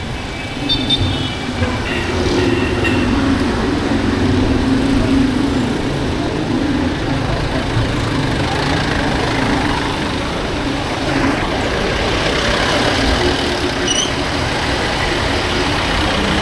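Steady rush-hour street traffic heard from a bicycle filtering through it: jeepney, motorcycle and car engines running close by.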